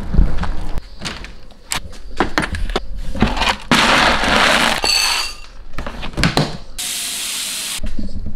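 Quick household handling noises: clicks and knocks, then dry dog kibble scooped from a plastic storage bin with a plastic scoop, a dense rattle of pellets a little past the middle. Near the end a steady hiss lasting about a second, then a knock as a stainless steel dog bowl is handled.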